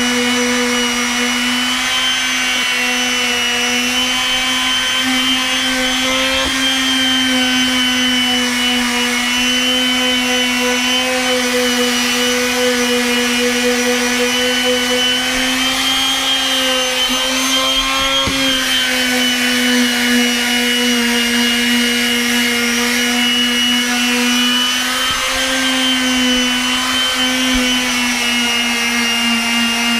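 Electric random orbit palm sander (Makita) running steadily against deck boards: a constant motor whine whose pitch wavers slightly as it is worked over the wood.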